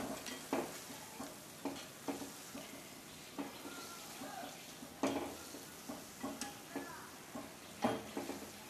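Perforated metal skimmer scraping and tapping against an iron kadai in irregular knocks while fried kara boondi is stirred and lifted from hot oil, over a faint steady sizzle. The sizzling has died down, the sign that the boondi is fully cooked.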